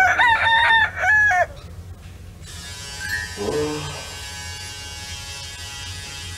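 A rooster crowing, a loud run of stepping notes lasting about a second and a half, marking the early morning. From about two and a half seconds in, the steady buzz of an electric shaver.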